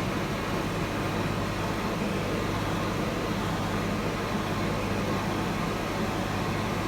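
A steady mechanical hum with an even hiss over it.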